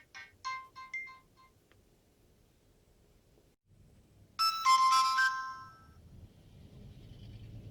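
Polyphonic ringtones of a Nokia 6230b phone: the last few notes of one melody fade out in the first second and a half, and after a lull a new, brighter chiming ringtone sounds loudly for about a second and a half a little past four seconds in. A faint low rumble follows.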